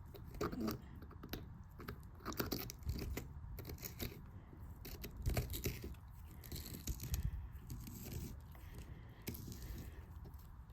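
Scattered small clicks, scrapes and rustles of hands handling a freshly oiled RC shock absorber, screwing its cap back on.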